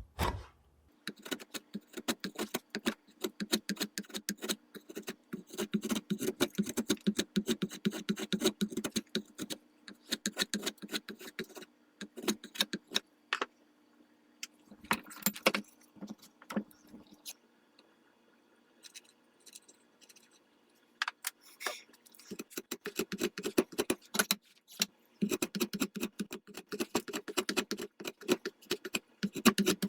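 Draw knife shaving walnut off the end of a rifle buttstock: runs of quick, crisp scraping and crackling cuts, with a quieter spell of only scattered clicks about two-thirds of the way through before the cutting picks up again.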